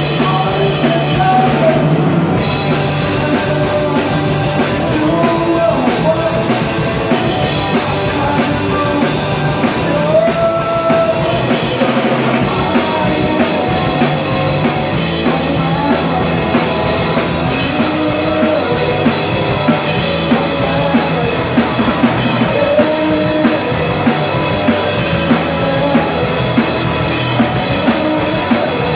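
Live rock band playing loud: electric guitars over a drum kit, with a melodic lead line bending in pitch above the steady beat.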